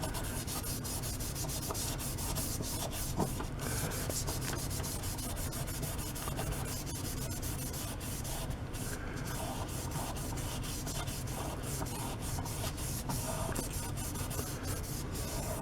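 Wet 3M Scotch-Brite scouring pad with Bon Ami cleanser scrubbing a sharpmaker stone in quick back-and-forth strokes, a steady scratchy rubbing. The scrubbing is taking the steel loading off the stone.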